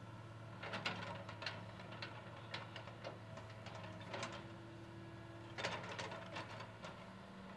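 Caterpillar 315C excavator's diesel engine running steadily while its bucket digs into a pile of dirt and gravel, stones scraping and clattering in several short rattling clusters. A brief higher steady whine comes just past the middle.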